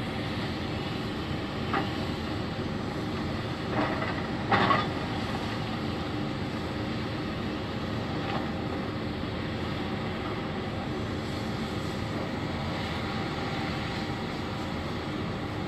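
Hitachi Zaxis 470 excavator's diesel engine running steadily while it works stone over a grizzly screen, with a few short clatters of rock, the loudest about four and a half seconds in.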